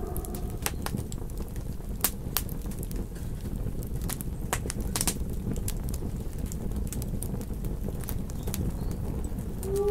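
Campfire crackling: scattered sharp pops and snaps over a steady low rumble of flames. A wolf howl begins at the very end.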